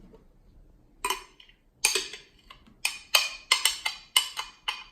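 A kitchen utensil tapping and clinking against a container about ten times at an uneven pace, each tap short with a brief ringing edge.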